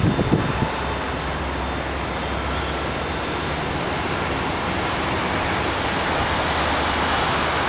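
Steady rushing noise of wind and distant road traffic heard from a high rooftop, swelling slightly near the end.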